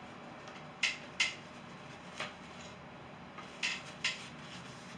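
Five light, sharp clinks of painting tools being handled, irregularly spaced: two close together about a second in, one near two seconds, and two more around four seconds.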